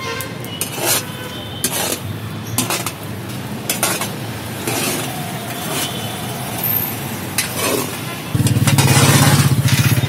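Metal ladle scraping and stirring peanuts as they dry-roast in a large black pan, a scrape roughly once a second with the nuts rattling. About eight seconds in, a loud low motor hum starts and runs on to the end.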